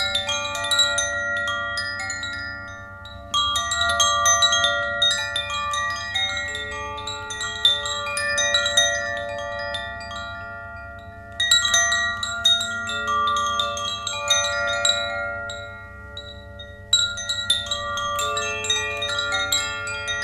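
Chimes set ringing in four bursts, at the start and about 3, 11 and 17 seconds in. Each burst is a cluster of many clear, overlapping notes that ring on and slowly fade. A faint steady low hum runs underneath.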